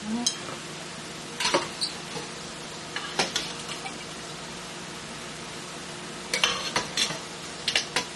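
A metal spoon scraping and knocking against a skillet as vegetables are stirred, in short clatters about a second and a half and three seconds in and a quicker run of them near the end, over a steady sizzle of food frying.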